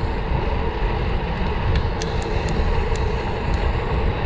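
Wind buffeting a bicycle-mounted GoPro's microphone while riding at speed, a loud low rumble mixed with tyre noise, with a few faint sharp ticks over it.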